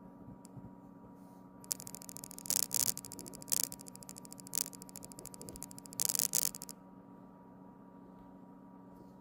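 Samsung Galaxy S25 Ultra camera module making its strange noise: a fast, even clicking rattle that starts about two seconds in, swells in several louder bursts and stops about seven seconds in. This is the noise that goes with the camera's very shaky focus. A faint steady hum lies underneath.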